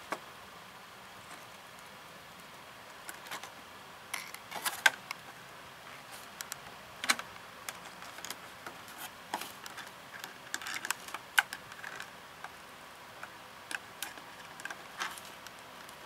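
Scattered, irregular small clicks and taps of needle-nose pliers working a copper wire against a thin plastic tub, bending the wire into a loop.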